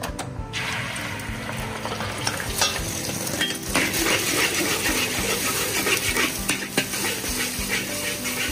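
Beaten eggs hit hot oil in a large iron wok and sizzle, starting about half a second in. From about four seconds in a metal spatula stirs and scrapes them around the wok over the continuing sizzle.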